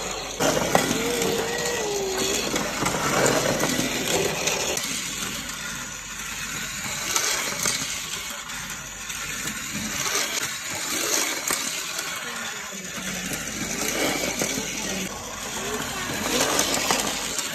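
A toy train running along its plastic track set, with a steady plastic rattling and clattering.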